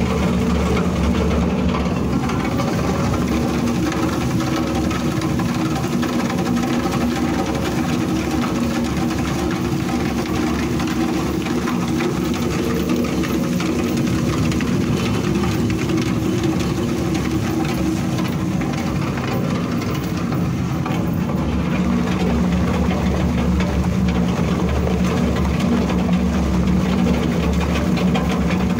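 A ZM800 15 kW shredder running steadily under load, grinding coiled perforated strip scrap with a dense, continuous rattling clatter over its steady hum.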